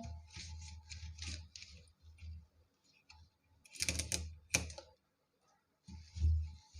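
Cotton cloth wiping the inside of a refrigerator, a soft rubbing hiss in short strokes. About four seconds in there is a quick run of sharp clacks, and a dull thump comes near the end.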